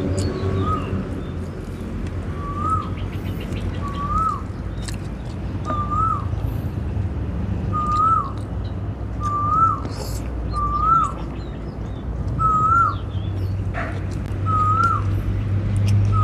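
A bird repeating a short whistled note that rises and then drops, about once a second, over a steady low rumble, with faint higher chirps in between.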